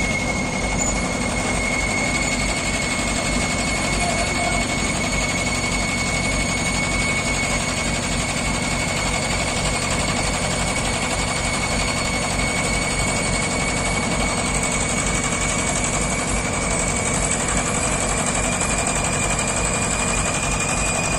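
Diesel engines of mobile cranes running steadily under a continuous high whine that edges slightly higher near the end.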